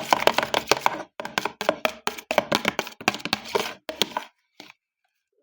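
Spoon stirring a slime mixture in a container, knocking and scraping against its sides in a quick run of clicks, about four a second, that stops about four seconds in.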